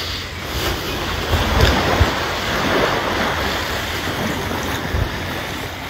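Wind rumbling on the microphone over a steady rushing wash of noise outdoors, from a light southwest breeze.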